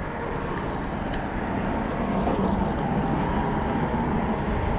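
Steady hum of road traffic on a highway bridge, growing a little louder over the seconds, with a brief hiss near the end.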